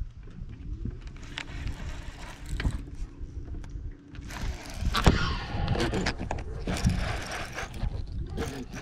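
Irregular clicks, knocks and rattles of handling gear in a fishing boat, over a steady hum for the first four seconds or so; the rattling grows busier and louder from about halfway through.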